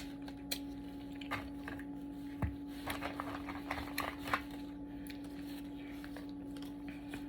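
Blue crab being eaten: scattered small clicks and cracks of shell being broken and picked apart, over a faint steady hum.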